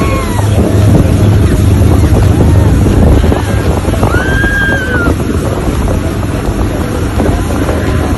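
Motorboat engine running steadily at speed, with heavy wind buffeting on the microphone and the rush of churned wake water. A short high-pitched cry rises and falls about four seconds in.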